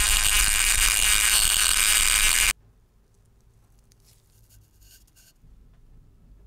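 Rotary tool with a grinding stone running steadily, grinding down the head of a nail used as a pivot pin into the wood. It cuts off abruptly about two and a half seconds in, leaving only faint handling rustles and a few light clicks.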